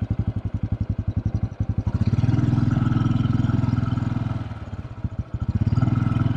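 Honda Super Cub's air-cooled single-cylinder four-stroke engine running under way, its exhaust pulses plainly separate. The engine note swells as the throttle opens about two seconds in, eases off a little past the middle, and swells again briefly near the end.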